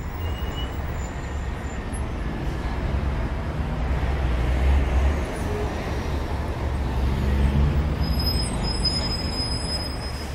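City street traffic: a steady rumble of road vehicles, with a faint high squeal near the end.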